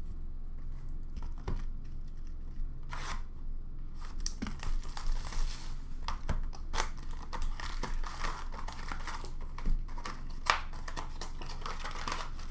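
Trading card packaging being torn open and crumpled: the crinkle and rip of pack wrappers, with scattered light taps and clicks of cards. It starts sparse and becomes a dense crinkling from about four seconds in.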